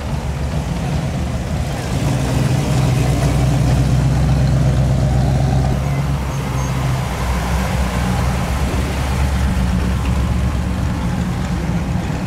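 Classic American cars' engines running with a deep, steady exhaust rumble as the cars roll slowly past one after another. The sound swells about two seconds in and eases slightly past the middle.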